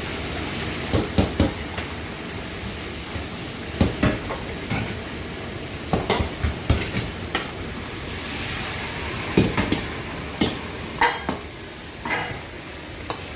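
Lamb frying in a hot pan with a steady sizzle, while a metal spatula stirs it, scraping and knocking against the pan every second or so.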